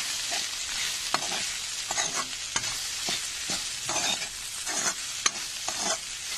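Chopped okra, green peas and tomato sizzling steadily in a hot pan as they are stirred to mix in the spices. The spatula scrapes and knocks against the pan every second or so.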